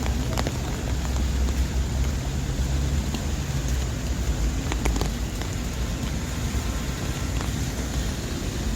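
Steady rain on a city street with traffic. A vehicle engine hums low through the first few seconds, with scattered sharp taps of drops throughout.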